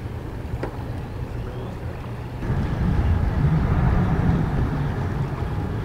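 Low, steady rumble of a sailing yacht motoring under engine power, mixed with wind buffeting the microphone. It grows louder and fuller about two and a half seconds in.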